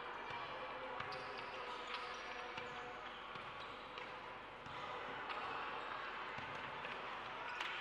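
Basketball bouncing on the court, a few sharp thumps spaced irregularly over the steady background noise of a large hall.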